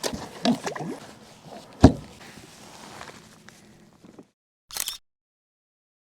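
A few scattered knocks and handling rustles, with one sharp loud thump about two seconds in. The sound then cuts to dead silence, broken once by a brief burst of noise.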